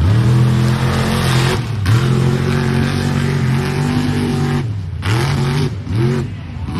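Lifted mega truck's engine revving hard as it drives through a mud bog. The revs dip briefly about two seconds in and climb again. Near the end they drop off, with a few short throttle blips before rising once more.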